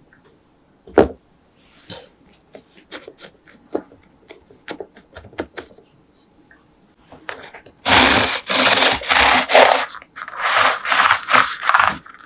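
A crisp baked choux shell is set down on a wooden cutting board with a single knock about a second in, followed by faint small clicks as it is handled. From about eight seconds a knife saws through the crisp shell in loud rasping, crunching strokes.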